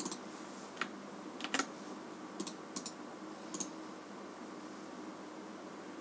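Scattered clicks of a computer keyboard, about eight short taps over the first three and a half seconds, then only a faint steady hum.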